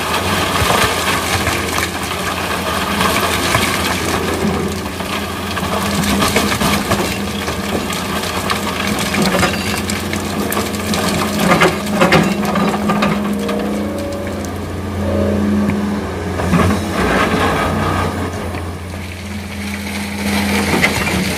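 Excavator's diesel engine running steadily under load while sand and stones scrape, crunch and rattle as the bucket digs and dumps into a truck bed, with a few louder clatters about midway.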